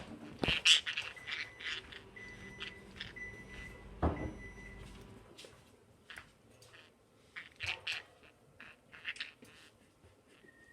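Budgies chirping and chattering in short, scratchy bursts while they play, with two dull thumps, about half a second and four seconds in.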